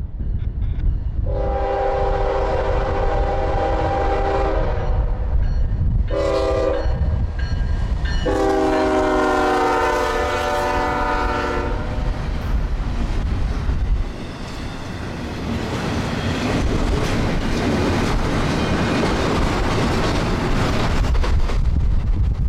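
Freight locomotive's multi-chime air horn sounding for a grade crossing: a long blast, a short one and another long one. Then the double-stack intermodal train rolls past close by, a steady rumble and rattle of wheels on rail and swaying well cars.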